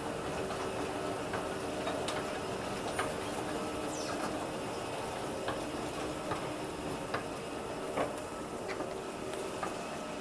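Otis escalator running: a steady machine hum with several held tones, and irregular ticks and clicks from the moving steps.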